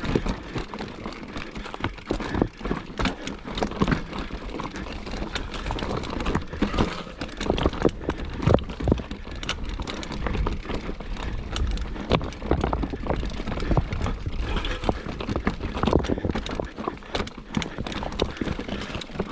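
Mountain bike ridden over rough trail: an irregular clatter of knocks and rattles from the tyres and bike over a steady low rumble.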